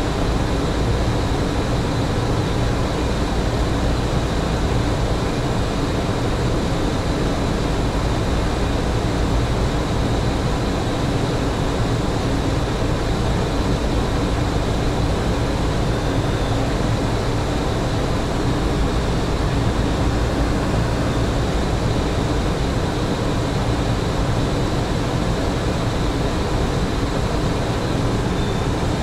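Steady flight-deck noise of a Boeing 737NG on approach with gear down and flaps extended: a loud, even rush of airflow and engine sound, with a few faint steady tones above it.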